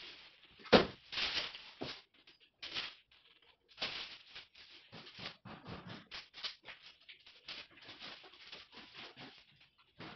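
Clear plastic stretch wrap crackling and rustling in quick, irregular bursts as it is pulled around a framed painting. A sharp knock sounds about a second in.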